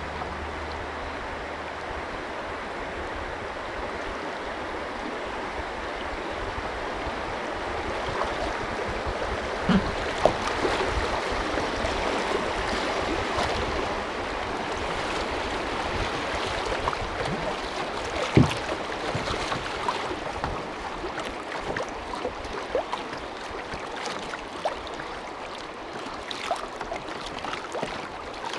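River water rushing through a class I rapid around a canoe, a steady rush that grows louder through the middle. A few sharp knocks stand out, the loudest about ten and eighteen seconds in.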